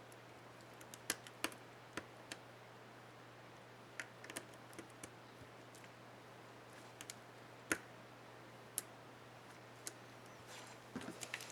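Irregular sharp plastic clicks from a laptop keycap and its clips being handled and pressed on an HP DM4 keyboard, with a quick run of clicks near the end. A faint steady hum sits underneath.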